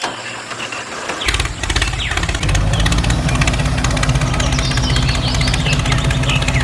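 An engine starts about a second in, with rapid even firing, and settles into a steady idle. Birds chirp in the background.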